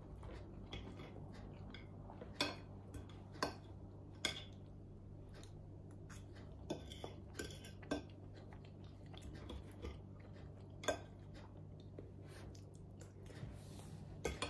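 Metal knife and fork clinking and scraping on a plate as food is cut and eaten, about seven sharp clinks spread through, with soft chewing between.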